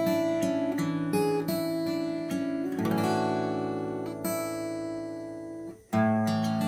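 Background instrumental music. It dips briefly almost to silence a little before six seconds in, then resumes.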